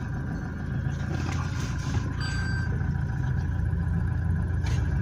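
Toyota Hilux engine idling steadily, with no squeal from the clutch: the release bearing has just been replaced.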